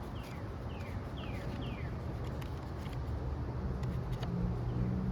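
A bird calling: a run of short, falling chirps, about two a second, over a steady low rumble with a few faint clicks.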